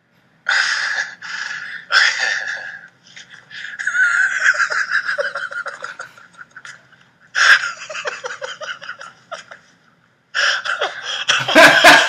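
A man laughing in about five bouts, with gasping breaths between them.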